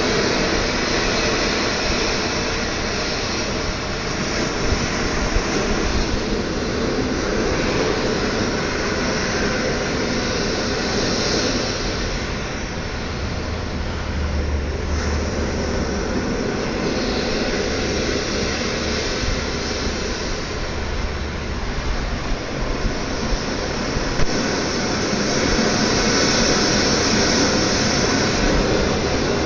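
Ocean waves: a steady rushing wash that slowly swells and eases over many seconds.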